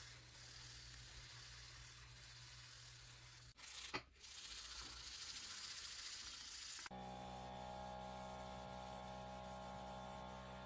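Sandpaper rubbing back and forth over small metal model-car panels, with a brief break and a sharp click about four seconds in. About seven seconds in the rubbing gives way to a steady hum with several held tones.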